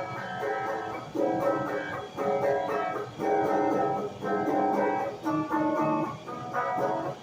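Instrumental pop-rock music led by electric guitar, playing phrases of held chords with short breaks between them.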